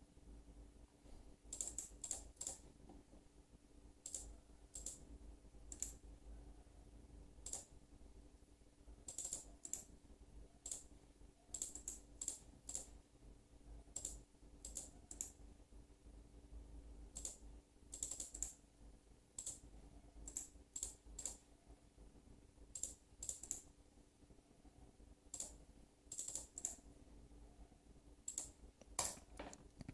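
Faint computer clicks from a mouse and keyboard, scattered singly and in quick runs of two or three, over a faint steady hum.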